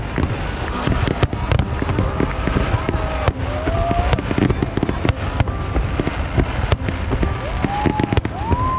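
Aerial fireworks bursting in a dense barrage of booms and crackles, with a few rising whistle-like tones arching over them.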